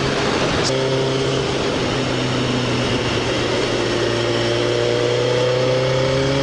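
Suzuki GSX-R motorcycle's inline-four engine running at a steady cruising speed under wind noise on the microphone, with a brief click near the start. From about five seconds in, the engine note climbs as the bike accelerates.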